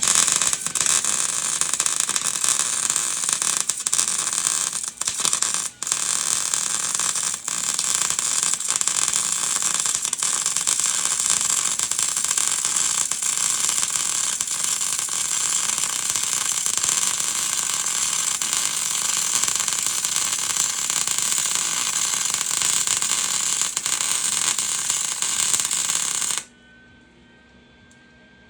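Flux-core wire-feed welder arc running steadily while a weld stitch is laid, with a few short breaks in the first eight seconds, then stopping sharply about 26 seconds in.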